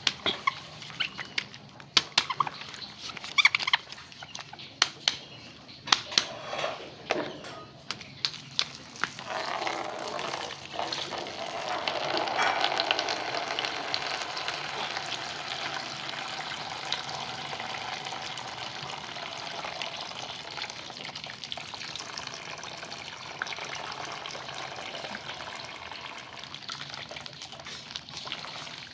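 Several sharp clicks and knocks for the first several seconds, then water starts running steadily from about nine seconds in, as from a tap, with a few splashy knocks over it.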